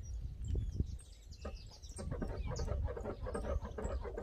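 Birds chirping over a steady low wind rumble on the microphone; about halfway through, a fast, rhythmic pulsing sound sets in and becomes the loudest thing.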